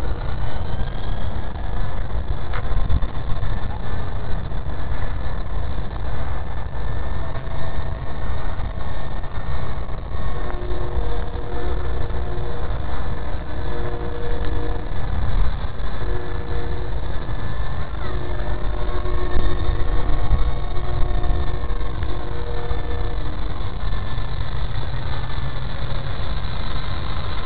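Wltoys V913 radio-controlled helicopter's electric motor and rotor whining steadily in flight, under heavy wind rumble on the microphone.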